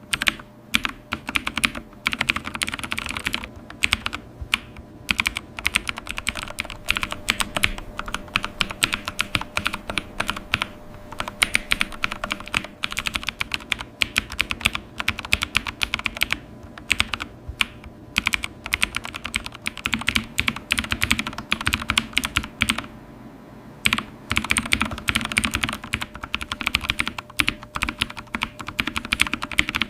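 Computer keyboard being typed on continuously: a rapid, uneven stream of key clicks, with a short pause about three quarters of the way through.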